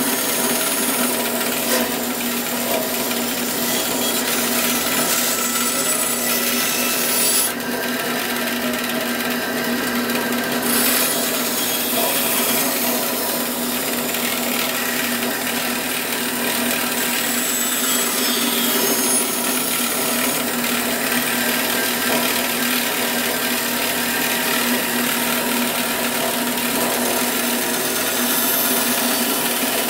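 Bandsaw running steadily, its blade cutting with a continuous rasping hiss over the motor's hum; the highest hiss drops away for about three seconds roughly a quarter of the way in.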